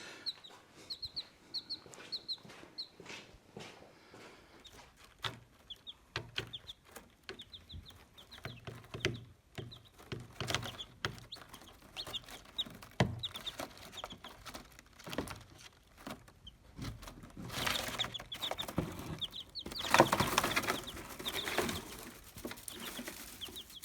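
Baby chicks peeping: many short, high cheeps in quick runs, with scattered light knocks and a couple of stretches of rustling in the second half.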